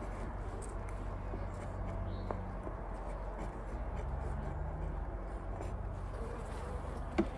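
Honeybees buzzing steadily around an open hive, the colony somewhat agitated and defensive. A brief sharp knock near the end.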